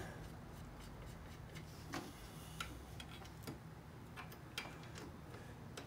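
Faint, irregular light clicks and metal taps from handling the foot peg mount and its 8 mm mounting bolts, over a low steady hum.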